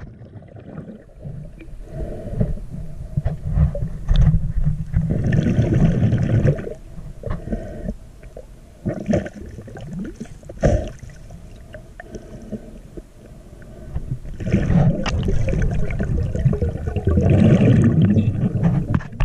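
Muffled water noise picked up by a camera moving underwater: a low rumble with two long surges of sloshing, gurgling water, and a few sharp clicks in between.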